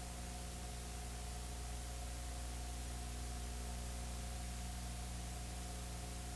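Steady hiss with a low hum and a faint high tone underneath, and no events: the blank audio of a VHS tape.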